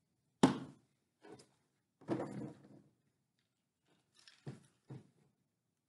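Handling sounds of a paper craft on a tabletop: a sharp knock about half a second in, then a rustle of construction paper about two seconds in, and a few light taps near the end as folded paper strips are pressed into place.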